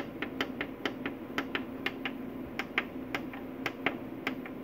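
Off-grid solar inverter humming steadily, with a fast, even ticking of about five ticks a second over the hum.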